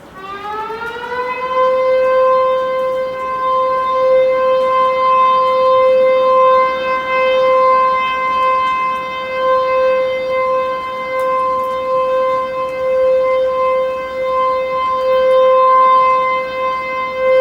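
Dam discharge warning siren on the Tenryu River, signalling that water is about to be released from the dam. It starts up and rises in pitch over about a second and a half, then holds one steady, loud wailing tone, its loudness wavering slightly.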